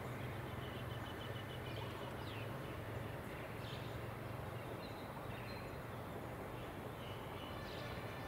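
Quiet outdoor ambience: scattered short bird calls over a steady low hum.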